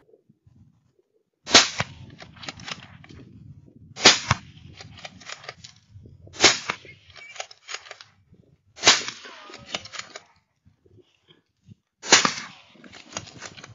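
Five rifle shots about two and a half seconds apart, each sharp crack trailing off in echoes over roughly a second.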